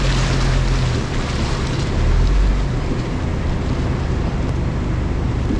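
A GMC Canyon pickup crawling along a rough off-road trail: a steady low rumble of engine and tyres with a rushing noise over it, and heavier low surges in the first second and again about two seconds in as the truck works over the ruts.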